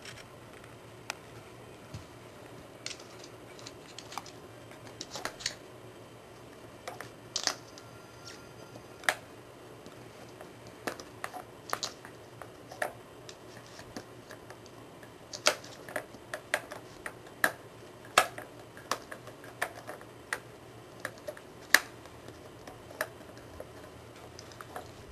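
Irregular hard plastic clicks and clacks from a Paw Hide puzzle toy as a poodle puppy noses and paws at its lids, the clicks bunching closer together in the second half.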